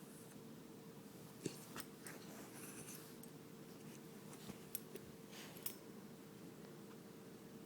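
Puppy hiccuping: several short, faint clicks at irregular intervals, the loudest about one and a half seconds in, over a steady low hum.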